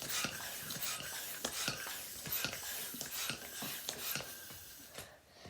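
A latex twisting balloon being pumped up by hand: a run of short, irregular rasping strokes that fade out near the end.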